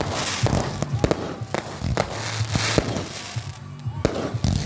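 Fireworks going off: a rapid, irregular series of bangs and crackles over a hissing background.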